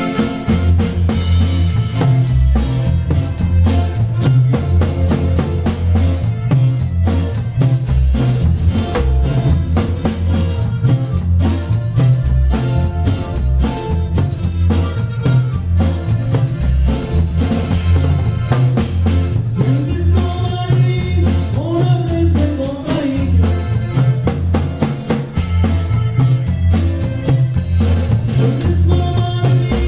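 Norteño band music playing loud, with a steady bass line and drum-kit beat and singing in places.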